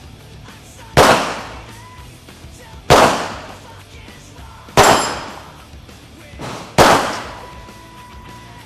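Handgun fired four times, slow and deliberate, about two seconds apart, each shot a sharp crack with a long ringing decay.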